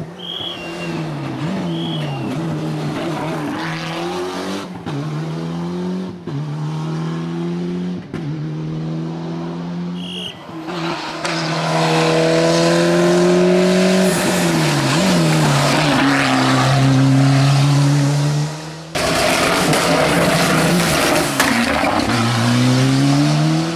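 Ford Escort rally car's engine revving hard, its pitch climbing and dropping sharply with each gear change, then falling away as it lifts off for corners. There are a couple of short tyre squeals near the start, and the engine is louder and closer in the second half.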